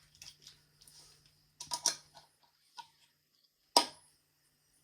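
A few light clicks and knocks from a can being handled, with a cluster of taps a little under two seconds in and one sharp knock, the loudest, near the end.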